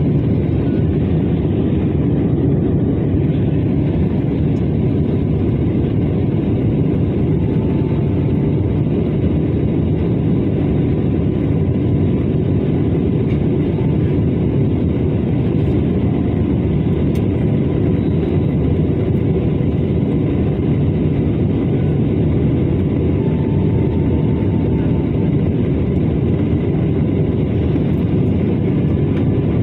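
Airliner cabin noise in flight: the jet engines and rushing air make a steady low rumble, with a faint steady whine above it.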